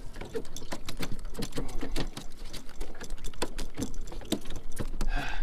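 A hooked bluefish thrashing on the line as it is handled, making a rapid, irregular clatter of slaps and knocks.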